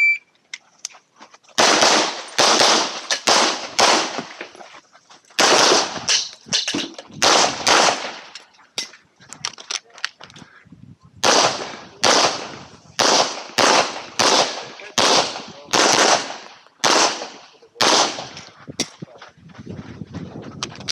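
Handgun fired in quick strings of shots during an IPSC stage: a string of about five, another of about five, then a longer run of about a dozen, with short pauses between strings for movement or reloads.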